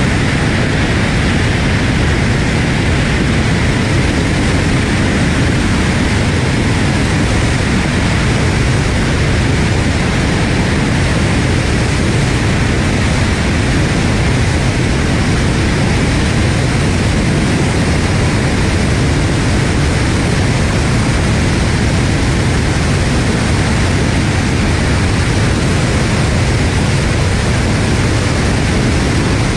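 Tu-160 bomber in flight, heard from a camera on its airframe: a steady rush of its four NK-32 turbofan jet engines and airflow, with a faint steady high whine.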